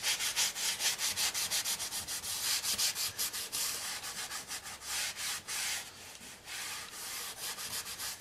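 Cloth rubbing back and forth over the face of a ceramic floor tile in quick hissy strokes, about three a second, turning softer and slower near the end.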